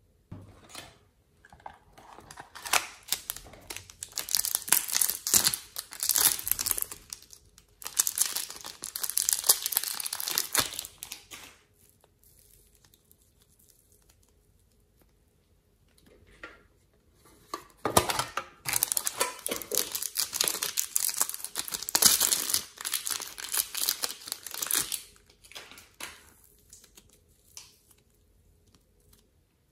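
Soft clay being squeezed, stretched and pulled apart by hand, giving a dense crackle of small clicks in two long spells with a quiet pause between.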